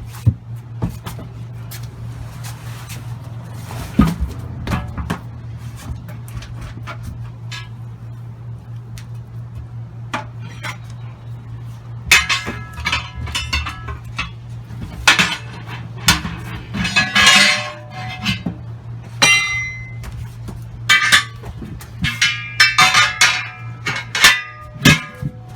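Steel tire bars striking and prying against the steel rim of a 22.5-inch truck wheel: repeated clanks with a metallic ring, scattered at first and coming thick and fast in the second half, while the beads are broken and the tire is worked off by hand. A steady low hum runs underneath.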